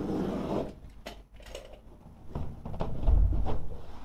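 Carpet and underlay being cut with a utility knife and handled: a scraping rustle at the start, a few light clicks, then a dull low thump about three seconds in.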